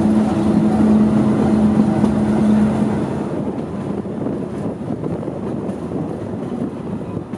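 Passenger train running along the track, heard from an open carriage window: a steady rumble with a hum that stops about three seconds in, leaving a quieter, rattling rumble.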